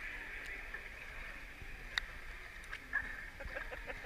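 Pool water lapping and sloshing at the surface, muffled through a waterproof camera housing at the waterline, over a steady hiss of pool noise with a couple of faint clicks.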